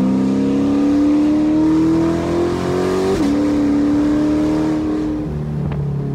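The cammed 6.2-litre V8 of a Chevrolet Corvette C8 accelerating, heard from inside the cabin. The engine note climbs steadily for about three seconds, drops suddenly with an upshift, holds, then settles to a lower steady note near the end.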